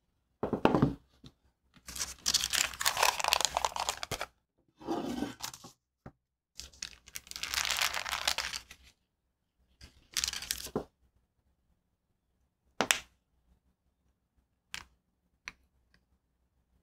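Parchment paper crinkling and rustling in several bursts as the top sheet is peeled back off a chilled, rolled-out slab of craquelin cookie dough. Near the end, a few short taps as a small plastic round cutter is pressed through the dough onto the board.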